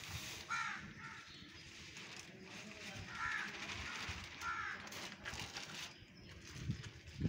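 A crow cawing three times, short harsh calls about half a second, three seconds and four and a half seconds in, over low handling noise.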